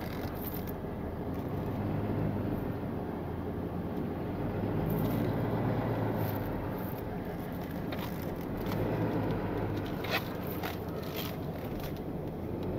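Tow truck's engine running as the truck is driven and repositioned, swelling and easing a few times. There is a brief sharp click about ten seconds in.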